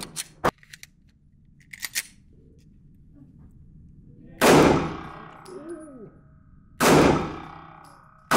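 Indoor-range pistol shots: two sharp shots about two and a half seconds apart and a third right at the end, each followed by a long ringing echo in the booth. A few light clicks come before the first shot.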